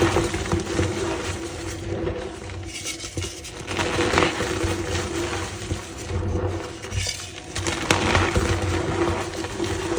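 A reformed block of gym chalk being crushed by hand, crumbling and crunching with squeaks, in uneven pulses of crackling.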